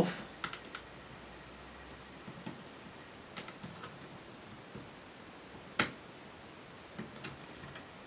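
Faint scattered clicks and light taps as a bracket is worked loose and lifted out of an opened white MacBook's case, the sharpest click about six seconds in.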